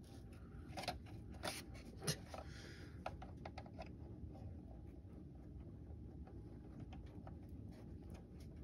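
Plastic model-kit parts being handled and pressed together: scattered light clicks and taps, a few sharper ones in the first couple of seconds and only faint ticks later, over a low steady room hum.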